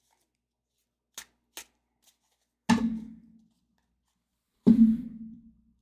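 Tarot cards handled over a tabletop: two faint card flicks, then two sharp knocks about two seconds apart as the deck is set down on the table, each with a short low ring from the tabletop.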